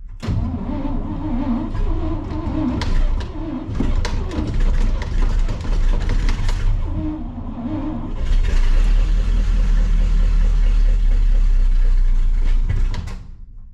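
International Harvester SV304 V8 petrol engine cranked on a prime of fuel poured into the carburetor. It fires unevenly at first, runs steadily for several seconds from about eight seconds in, then cuts off near the end, which the owner puts down to too much fuel in the carburetor.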